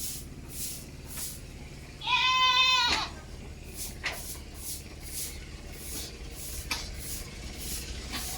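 A goat bleats once, a single loud call of about a second with a wavering pitch.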